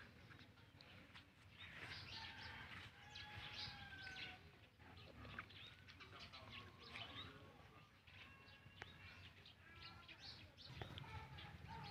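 Faint animal calls: many short high chirps and thin whistled notes over a low background rumble.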